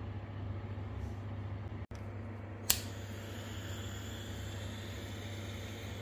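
A handheld heat tool, used to shrink tubing over a spliced power-cord joint, switches on with a sharp click about halfway through and then gives a steady hiss over a low, steady hum.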